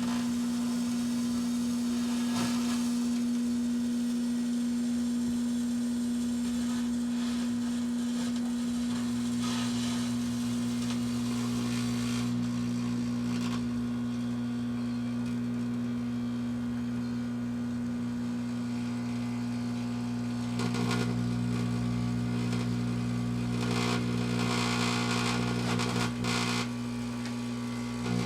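1984 Kenmore microwave oven running with a steady hum, while Morning Glory sparklers burn inside and add a fizzing hiss that swells several times.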